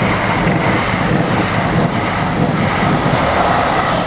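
Train passing, a loud steady rumble and rush with a faint high whine.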